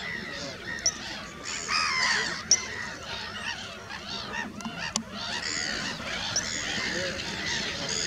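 Many waterbirds calling at once: short, harsh, honking calls that overlap continuously, with a few sharp clicks among them.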